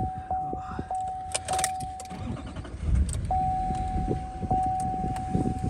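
Vehicle warning chime sounding over and over, about one and a half chimes a second, pausing for about a second partway through, over a low rumble from the vehicle.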